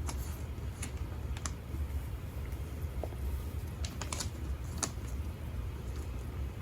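A few scattered light clicks and taps, about seven, from small tripod parts and packaging being handled, over a steady low hum.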